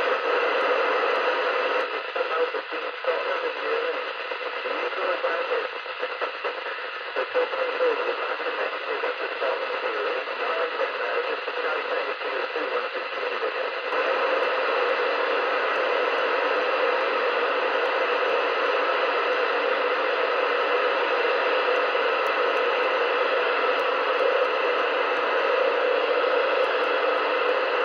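Hiss and static from an Audioline CB radio's speaker as the channel knob is turned down through the channels. For roughly the first fourteen seconds the static is choppy and uneven, then it settles to a steady hiss.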